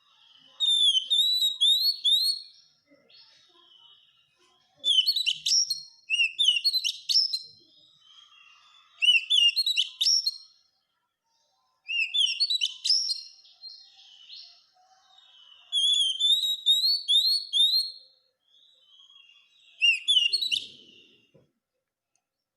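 Oriental magpie-robin (kacer) singing: clear whistled song in phrases of quick rising notes, each phrase a second or two long, about seven phrases with short pauses between.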